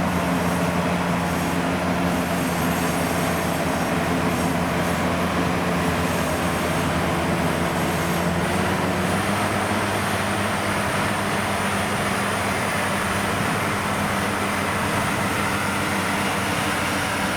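Diesel engines of rice-harvesting machinery (combine harvesters and tractors) running steadily, with a slight change in engine note about halfway through.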